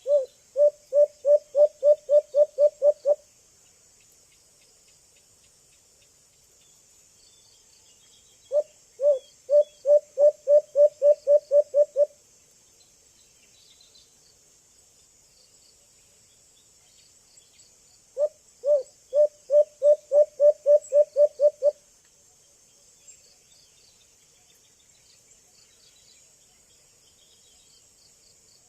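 Young white-eared brown dove calling: three bouts, each a quick series of about a dozen low hoots that grow louder, repeated every nine seconds or so. Insects trill faintly and steadily behind.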